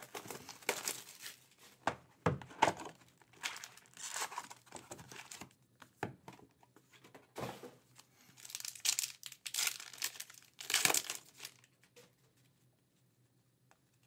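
Clear plastic wrap torn off a hobby box of trading cards, then foil card packs crinkled and ripped open, in irregular bursts of crinkling and tearing that stop about two seconds before the end.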